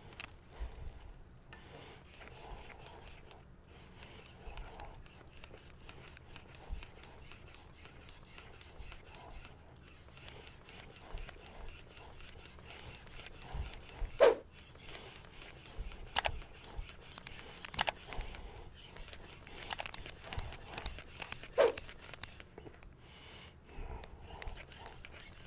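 Powdered-steel (R2/SG2) Damascus bunka blade stroked back and forth on a wet synthetic water stone, a soft repeated scraping of steel on stone. A few sharper clicks stand out in the second half.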